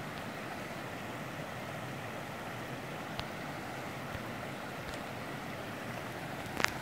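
Shallow mountain stream rippling steadily over rock slabs and gravel. A few faint clicks, and one sharper click near the end.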